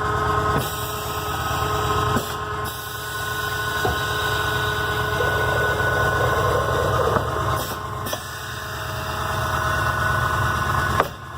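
Scotchman CPO315HFA automatic cold saw running through its cycle: a steady motor hum with the blade cutting down through the stock. A few sharp clunks come from the vise clamping and indexing the piece forward.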